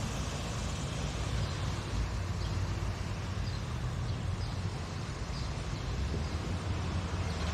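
City street ambience: a steady low rumble of traffic under an even wash of street noise, with a few faint high chirps.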